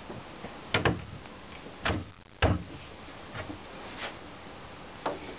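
A handful of sharp knocks and clicks, the loudest about one and two and a half seconds in, as a metal support strap is handled and fixed across the joint of two painted bunk-bed side panels.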